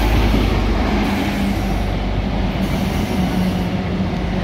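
Diesel passenger trains running close past a station platform: a steady rumble of wheels and engines, loudest at the start, with a steady hum underneath from about a second in.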